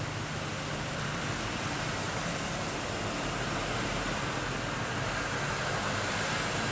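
Jet airliner engine noise: a steady rushing sound that slowly grows louder.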